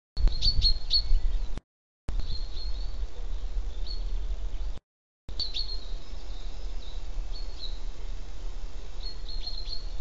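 Small songbirds chirping: short high calls in quick clusters, densest at the start and again near the end, over a steady low rumble. The sound cuts out completely twice for about half a second each, dropouts in the live-stream audio.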